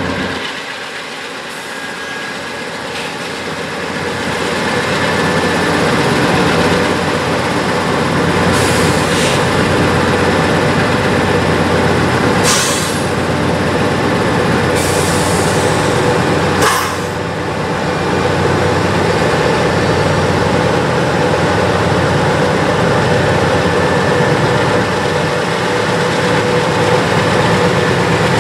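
Norfolk Southern GE diesel locomotives, a C44-9W leading a C40-8W, passing close by in high throttle. Their 16-cylinder FDL prime movers run steadily under load over the rolling of the train, growing louder over the first few seconds as the units come abreast.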